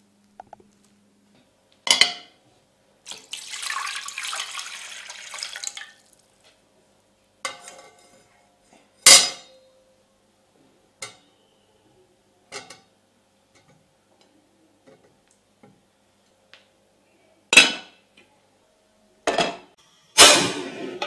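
Aluminium steamer pot and its perforated insert being handled, with several sharp metallic clanks and a brief ring as they are knocked and set down. A few seconds in, water pours into the pot for about three seconds.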